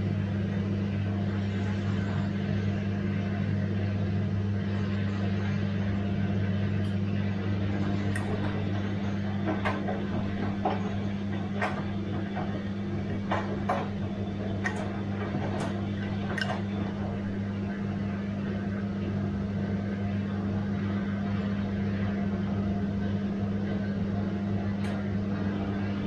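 Bosch washing machine running with a steady low hum. Light, sharp clicks come and go in the middle and again near the end.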